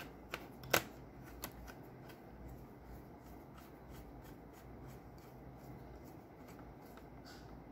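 Small screwdriver turning a laptop's heatsink retaining screw, the tip clicking in the screw head: two sharp clicks within the first second, then a run of fainter clicks.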